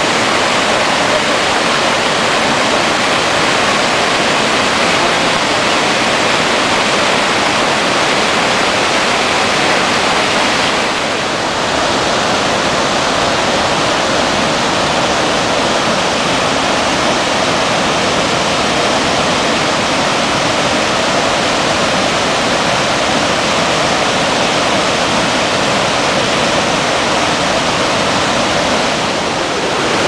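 Steady rushing noise of the Iguazú Falls, masses of water pouring over the cliffs, dipping briefly in level about eleven seconds in.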